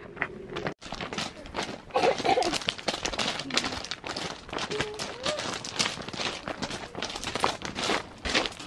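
Quick footsteps crunching on a loose gravel trail as several people hurry along, with a couple of brief vocal sounds.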